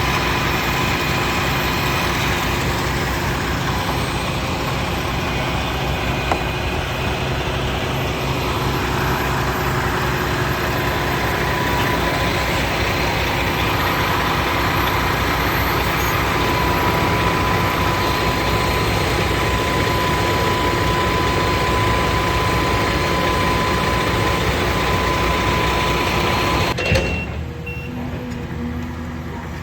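Heavy machinery engine running steadily under load, with a steady whine over a low throb. It drops off suddenly near the end and carries on more quietly.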